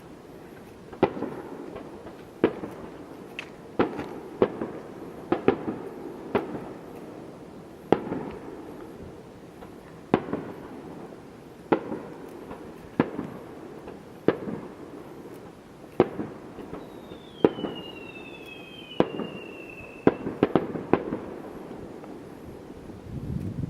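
Aerial fireworks shells bursting in a steady series of sharp bangs, about one a second, each followed by a rumbling echo. Two falling whistles sound about two-thirds of the way through.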